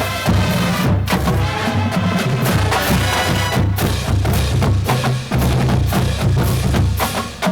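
Marching band playing a drum-heavy passage: bass drums and sharp drum hits drive a steady beat under the band.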